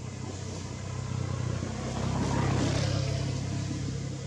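A motor vehicle passing by: its engine hum and road noise swell to a peak a little past halfway, then fade.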